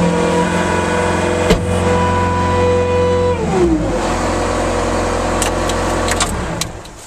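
Bobcat S185 skid steer's 61-horsepower Kubota diesel engine running steadily at high revs. About halfway through, the revs drop, it runs lower for a couple of seconds, and then it dies away near the end.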